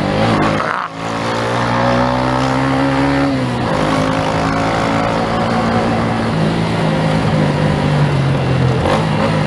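Yamaha 150 single-cylinder motorcycle engine running under way, with wind and road noise. The engine note breaks briefly about a second in, falls in pitch about three and a half seconds in, then holds steady.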